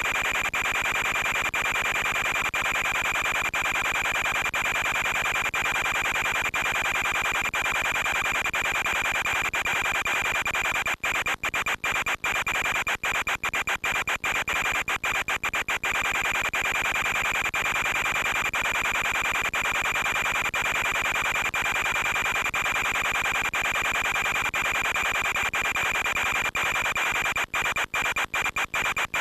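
Steady radio static hiss with a constant high whine running through it, from the audio channel of an analog FPV video link. The hiss cuts out in many brief dropouts, clustered about halfway through and again near the end.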